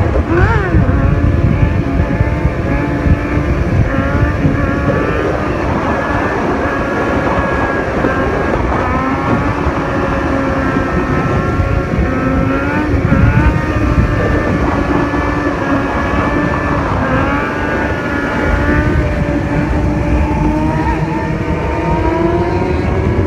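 Sport motorcycle engines running and revving as the riders hold wheelies, several engine notes rising and falling in pitch over one another. Heavy wind rumble on the microphone of the moving chase vehicle.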